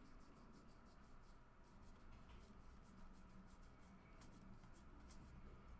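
Faint, soft ticking and rubbing of trading cards being flicked through and slid against each other by hand, several small ticks a second over a low room hum.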